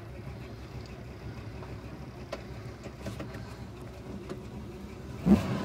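Small-block Chevy V8 in a truck running at low revs, a steady deep bass rumble. A short louder burst comes near the end.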